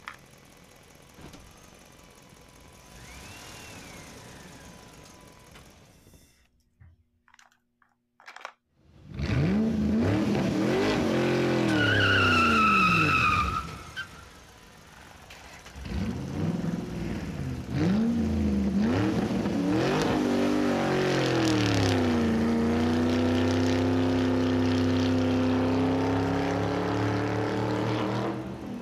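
Car engine sound revving up and down several times, with a brief high tyre-like screech, then held at a steady high drone. It starts suddenly after a quiet stretch.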